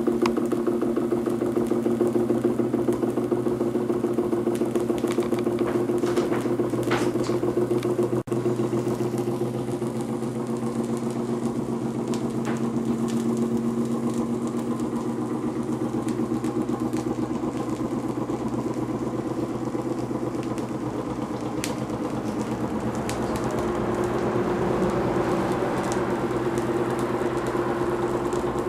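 Homemade walking-beam Stirling hot-air engine running at a steady speed, its crank and linkage giving a rapid, even mechanical rhythm, with a brief break about eight seconds in.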